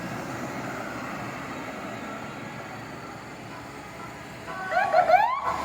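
Steady engine and road noise from passing traffic. Near the end a loud basuri musical horn sounds several tones at once, all gliding upward, and then breaks off abruptly.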